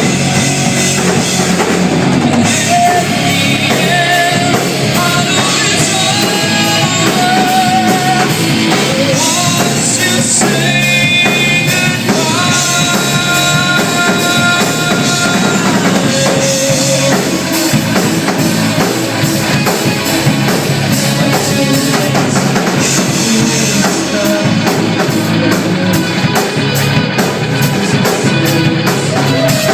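Rock band playing live, with a drum kit, guitar and a singing voice.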